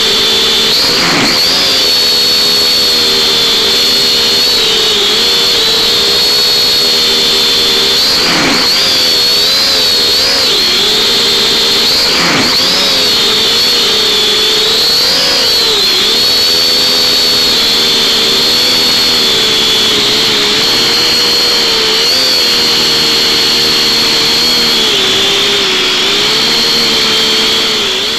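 Small camera quadcopter's motors and propellers whining, heard from the drone's own onboard camera, with the pitch wavering and dipping as the throttle shifts.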